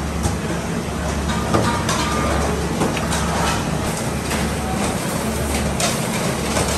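Steady low machinery hum with a hiss of water spraying from a hose onto blanched potato fries in steel trays.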